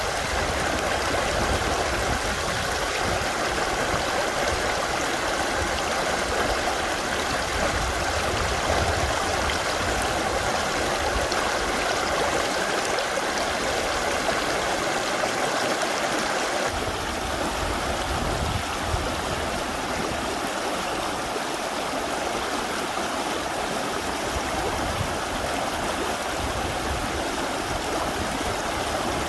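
Mountain stream rushing steadily over rocks. About 17 s in, the sound changes abruptly and turns slightly duller and quieter.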